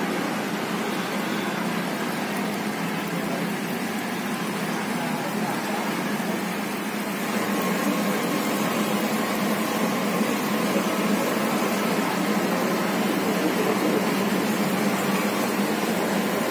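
Jalebi batter sizzling as it is squeezed in spirals into hot oil in a kadai: a steady frying hiss over a low hum, growing slightly louder about halfway through.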